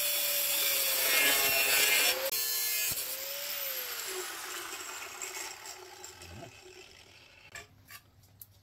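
Corded angle grinder running with its disc against a welded metal RC crawler frame, grinding for about two seconds. It is lifted off, gets a brief rise in pitch around three seconds, then winds down, its whine falling in pitch and fading out by about seven seconds in, with a few small clicks near the end.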